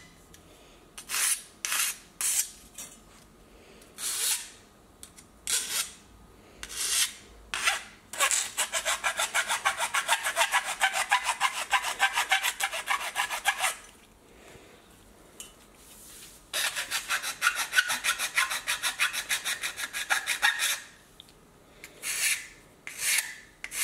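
A steel mill file rasping along the cut edge of aluminum Schluter tile-edge trim, taking off its sharp burrs. There are single separate strokes at first, then two long runs of quick back-and-forth strokes with a pause between, and a few single strokes near the end.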